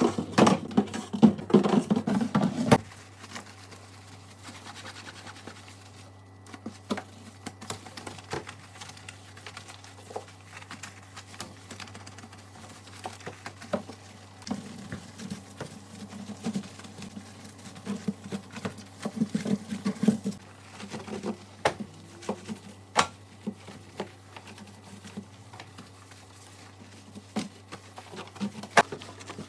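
Small clicks, taps, scrapes and rubbing of containers and shelves being handled and wiped while a fridge is cleaned out, denser and louder for the first couple of seconds, then scattered.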